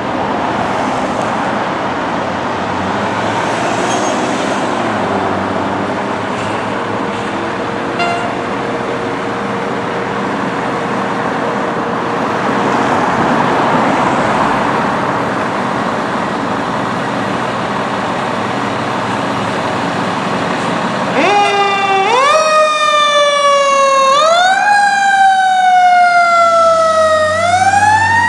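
A fire engine's diesel engine running as the truck pulls out. About 21 seconds in, its siren comes on and wails in repeated sweeps, each one rising sharply and falling away more slowly.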